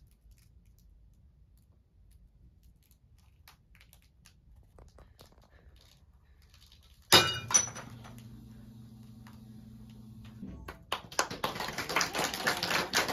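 Glass vessel dropped and smashing on a hard floor: one sudden loud crash with clinking about seven seconds in, after near-quiet. A steady low hum follows, then a dense run of sharp clatter near the end.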